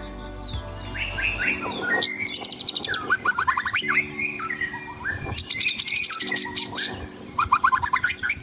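White-rumped shama (murai batu) singing: phrases of slurred whistled notes alternating with very fast, high rattling trills, repeated several times.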